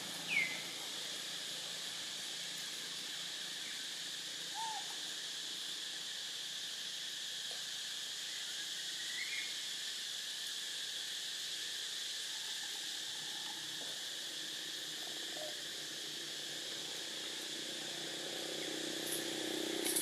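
Steady outdoor insect drone with a few brief chirping calls over it; the loudest is a short falling chirp just after the start.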